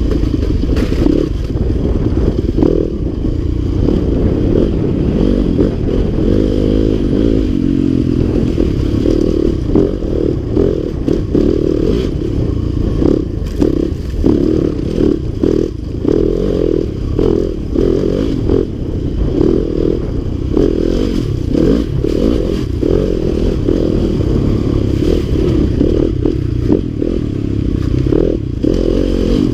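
Dirt bike engine running as the bike is ridden, the throttle rising and falling continually. Frequent short knocks and rattles come from the bike jolting over rough ground.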